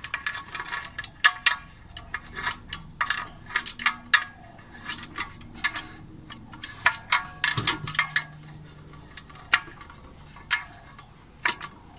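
Irregular metallic clicks and clinks as the nuts on a Weber kettle barbecue's handle bolts are tightened with the small tool supplied with the kit, metal knocking against metal.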